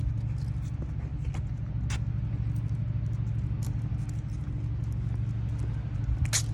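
A steady low mechanical hum, like a nearby engine running, with scattered light ticks and a sharper click near the end.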